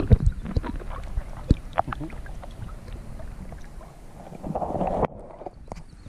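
Kayak paddling on calm water: scattered paddle splashes and drips over a low wind rumble on the microphone. The sound drops suddenly about five seconds in.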